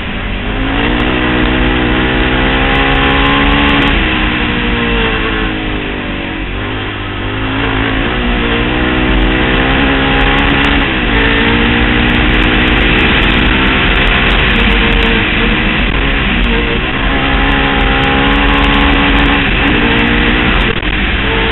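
Honda TRX700XX quad's single-cylinder four-stroke engine through a Big Gun Evo-R aftermarket exhaust, revving hard at speed. Its pitch climbs and falls repeatedly, dipping briefly several times between pulls.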